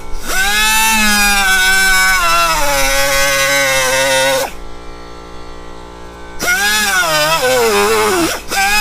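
Power tool cutting through the steel exhaust pipe. Its motor whine sags in pitch as the cut loads it, eases off for a couple of seconds in the middle, then bogs down again near the end.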